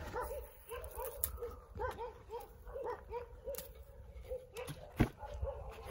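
An animal's short rising-and-falling cries, repeating about three times a second and thinning out toward the end. A few sharp knocks sound over them, the loudest about five seconds in.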